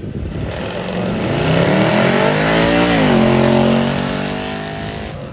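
Mercedes-Benz sedan's engine and exhaust revving hard as it launches. The pitch climbs, drops sharply about three seconds in at an upshift, then the car pulls away and the sound fades toward the end.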